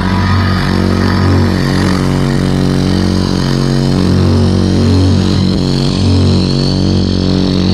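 Very loud, bass-heavy music played through a stack of horn-loaded subwoofer cabinets during a sound-system check. Deep bass notes hold and step from pitch to pitch under a dense, distorted upper layer.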